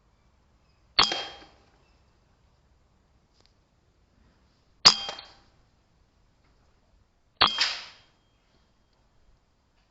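Three shots from a PCP air rifle, each a sharp crack followed by a short metallic ring.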